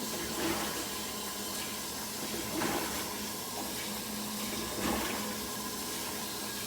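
Samsung washing machine running with water: a steady rush of water and sloshing, swelling about every two seconds, over a faint machine hum.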